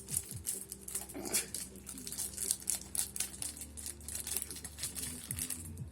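Packaging crinkling and crackling in the hands as a boxed iPad is worked at to get it open: a dense run of small irregular crackles.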